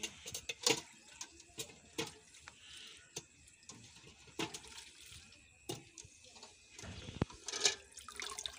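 Cluster beans (gwar phali) being washed by hand in water in a steel bucket: irregular splashing and sloshing, with sharp clinks every second or so.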